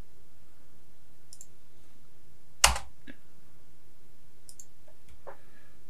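A few scattered clicks of a computer keyboard and mouse while code is edited, with one much louder, sharper click about two and a half seconds in.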